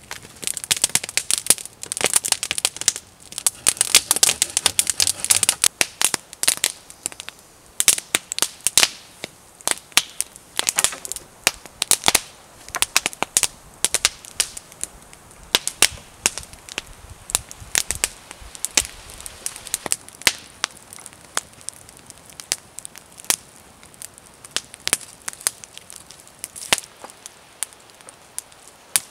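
Irregular crackling with sharp dry snaps, dense for the first six seconds or so, then thinning to scattered snaps.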